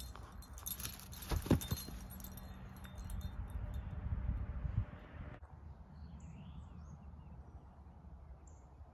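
A dog tugging and shaking a rope toy, with metallic jingling and rustling and one sharper knock about a second and a half in. It cuts off abruptly about five seconds in, leaving quiet outdoor ambience with a few faint bird chirps.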